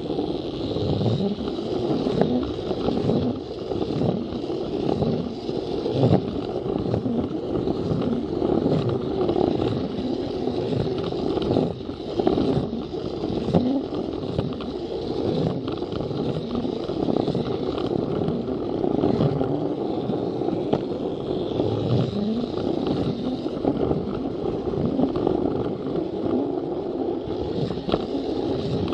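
Plarail battery-powered toy train running on plastic track: a steady motor whine with constant rattling and irregular clicks of the wheels on the rails.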